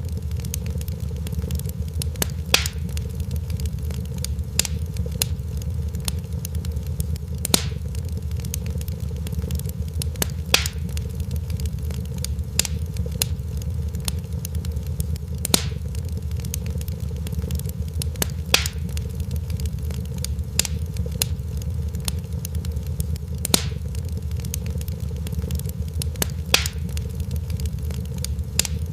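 Wood fire in a fireplace crackling, with small snaps throughout and sharper pops every two to three seconds over a steady low rumble.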